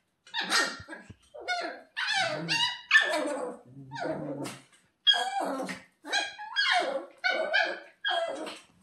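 Shiba Inu puppy screaming: a string of about eleven high-pitched yelping cries, each under a second long, with short gaps between them.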